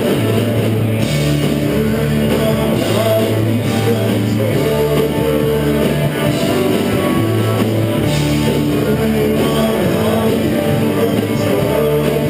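Rock band playing live, with electric guitars and drums; the low notes change every second or two.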